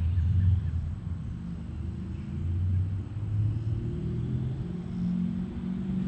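2012 Mercedes E63 AMG twin-turbo V8 with downpipes and a custom X-pipe exhaust, running at low revs with a low, steady rumble that swells and eases a little without any sharp rev.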